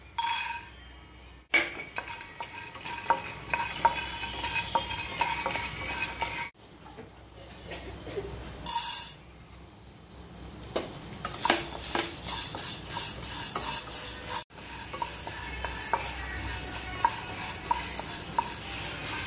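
Whole green moong beans being dry-roasted in a nonstick kadai and stirred with a wooden spatula: a dense rattle and scrape of the dry beans against the pan. The sound breaks off suddenly a few times where the clips are cut together.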